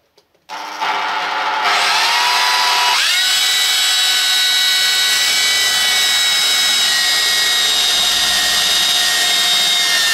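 Battery-powered rotary hammer drilling a hole in steel tubing: the motor starts about half a second in, picks up speed about three seconds in, then runs at a steady high whine.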